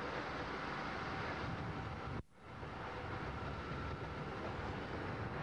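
Fire hose spraying a jet of water under a steady, noisy rumble typical of a fire pump running. The sound drops out briefly about two seconds in, then carries on as before.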